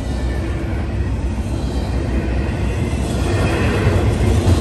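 Norfolk Southern freight train rolling through a grade crossing: a steady low rumble of wheels on rail that grows louder from about three seconds in as the cars pass closer.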